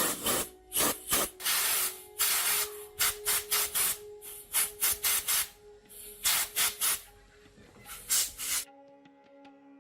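Irregular short hissing rubbing strokes, like scrubbing or brushing a metal part during restoration work, over steady background music. The strokes stop near the end, leaving only the music.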